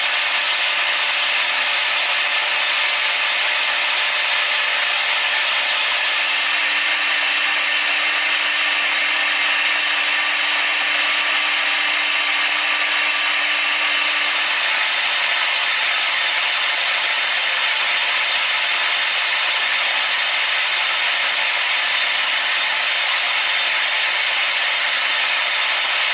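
CNC machine at work, a steady unbroken machining noise with a faint low hum partway through.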